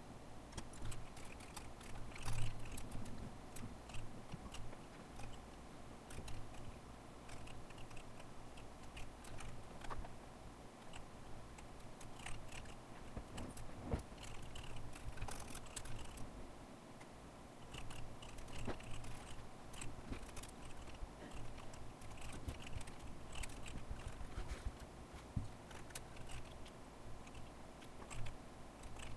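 Typing on a computer keyboard: irregular runs of keystrokes with short pauses between them, over a low steady hum.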